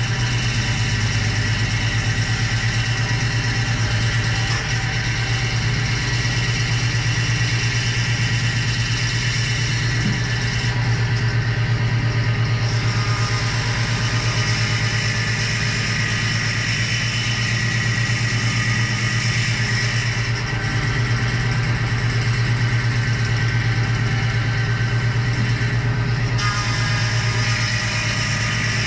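A machine's motor running steadily with a constant low hum, its higher-pitched noise shifting slightly a couple of times.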